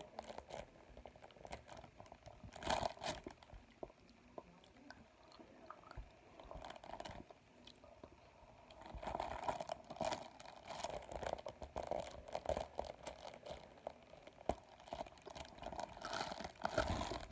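Biting and chewing on a sheet of paper from a box of chocolates, smeared with chocolate: crunching, crinkling clicks, sparse at first and denser from about nine seconds in.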